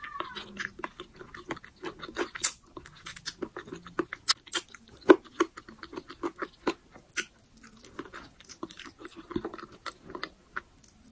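A person chewing and biting a mouthful of braised pork humba and rice: a quick, irregular run of mouth clicks and smacks, loudest about five seconds in.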